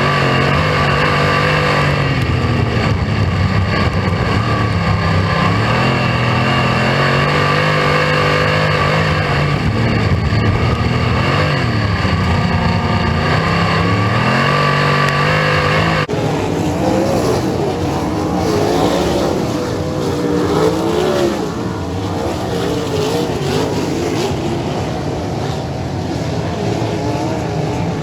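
Racesaver 305 sprint car V8 engines at race speed, their pitch rising and falling repeatedly as the throttle comes on and off through the corners. About sixteen seconds in, the sound changes abruptly to a slightly quieter, more wavering engine note.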